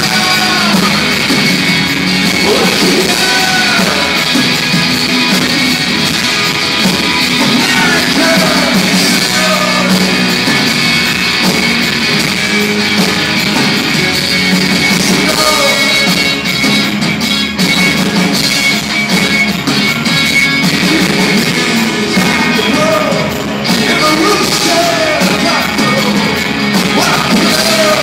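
Live rock band playing a song with a man singing lead over electric guitars, bass and drums.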